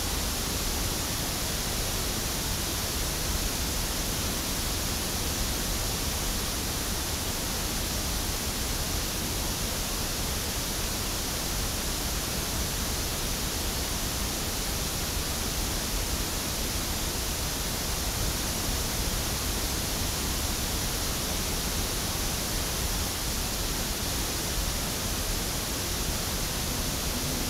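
Pink noise test signal played through a loudspeaker and picked up by an Audix OM7 dynamic microphone: a steady, unchanging hiss.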